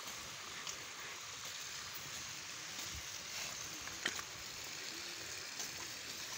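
Steady outdoor background hiss, with a few faint light clicks.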